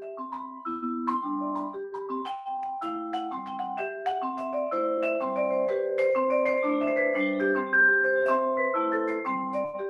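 Vibraphone played with four yarn mallets: a repeating low ostinato with a melody of ringing notes above it, a kora-style pattern adapted to the vibes. It grows a little louder as it goes.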